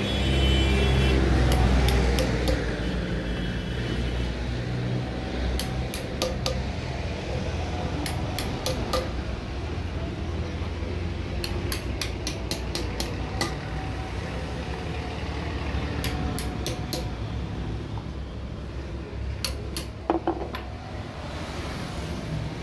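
Light metal-on-metal taps and clinks from hand work on metal parts, coming in short quick runs of three to six every few seconds. Under them is a steady low rumble of vehicle engines, loudest in the first two seconds.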